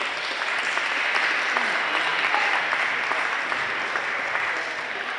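Spectators clapping: a burst of applause that builds quickly, holds, and eases slightly near the end.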